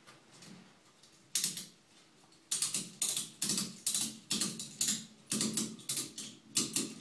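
Ratchet strap being cranked tight: one ratcheting stroke about a second in, then steady strokes about two a second, each a quick burst of clicks from the pawl.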